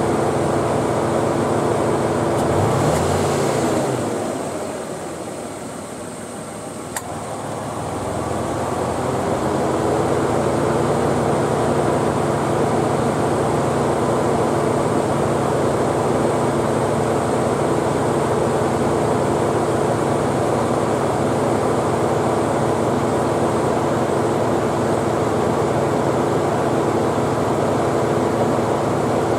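Nissan Elgrand E51's air-conditioning compressor running with its abnormal noise. About three seconds in it cuts out and its tone winds down. A sharp click comes about seven seconds in, and the sound builds back up and runs steadily. This is the compressor clutch cycling off and on, the fault the owner is showing.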